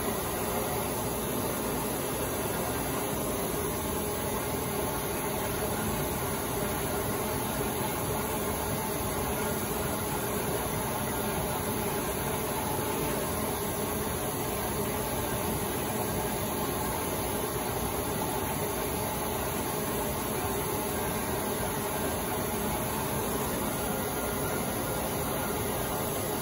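A flatbed stencil cutter at work: its 1/2 HP vacuum hold-down pump runs with a steady, even noise while the servo-driven cutting head travels across the table.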